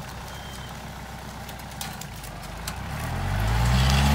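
Compact tractor engine idling with a low, even throb, then revving up about three seconds in and holding at a higher speed.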